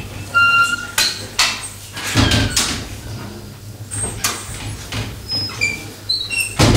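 Sheets of paper being handled and shuffled near a microphone: a string of rustles and sharp knocks, with a few short high squeaks and a steady low hum under it all.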